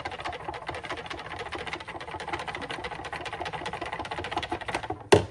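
Fast stirring of gelatin in hot water in a mixing cup, the utensil clicking against the cup many times a second. A single sharp knock near the end, as the stirring stops.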